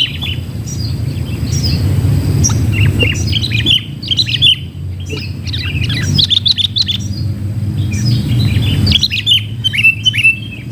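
Sooty-headed bulbuls calling in quick bouts of sharp, chattering chirps, several separate bursts, over a steady low rumble.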